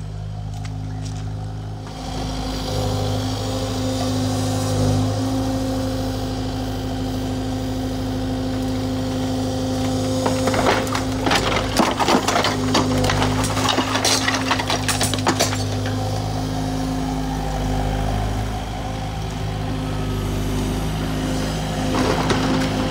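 Diesel excavator engine running steadily. From about ten to sixteen seconds in, wood cracks and splinters and glass breaks as the excavator's arm tears into the old cottage's roof, and a few more cracks come near the end.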